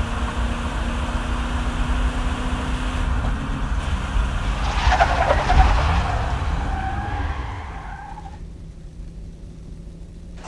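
Car engine running with road rumble, then tyres screeching in a skid about five seconds in; the squeal drops in pitch and dies away, leaving a quieter low rumble.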